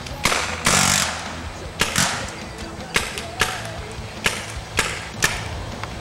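Paintball markers firing: a string of sharp pops, roughly every half second and unevenly spaced, with a longer hiss about a second in.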